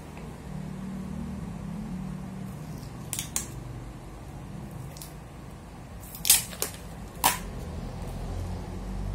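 Paper-craft handling noises: a few short, sharp crackles and snaps of paper or tape being worked, the loudest a little after six seconds, over a low steady background hum.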